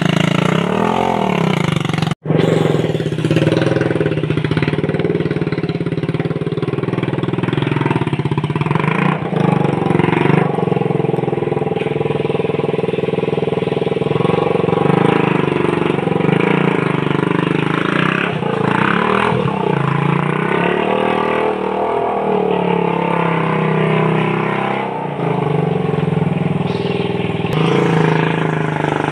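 Homemade mini buggy's motorcycle engine running under way, its pitch rising and falling as it accelerates and eases off, with a brief dropout about two seconds in.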